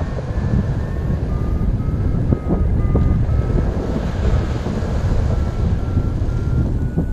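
Jet turbine engine running, a low rumble under heavy wind noise on the microphone, with a faint whine that climbs slowly in pitch.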